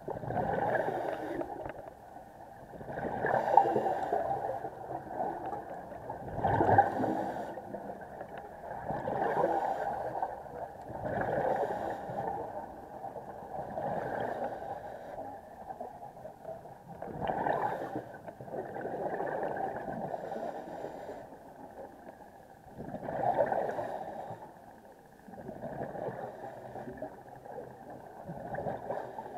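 Scuba diver breathing through a regulator underwater: muffled bursts of exhaled bubbles swell and fade every two to three seconds.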